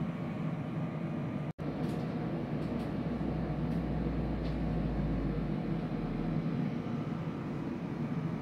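Steady low background hum with no distinct events, dropping out for an instant about one and a half seconds in.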